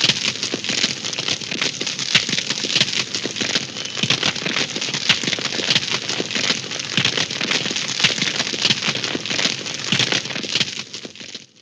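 Cartoon fire sound effect: a dense, steady crackle of many small pops over a hiss, like a blaze burning, fading out near the end.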